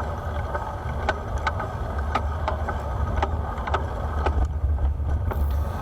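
Bicycle on the move: a steady low rumble of wind and tyres, with scattered sharp clicks and rattles from the bike every fraction of a second.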